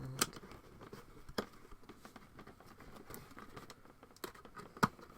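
Cardboard box being handled and refolded inside out: light scrapes of card with a few sharp taps, the loudest near the end.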